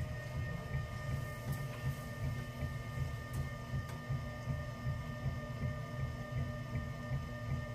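Electric potter's wheel running steadily under a clay vessel being thrown: a whine of a few steady tones over a low rumble.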